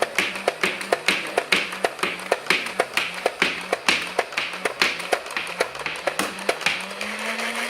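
Nerf Rapidstrike motorised blaster firing in full-auto. Its battery-driven flywheel motor hums steadily under a fast run of sharp clicks, about four a second, and the hum rises slightly near the end.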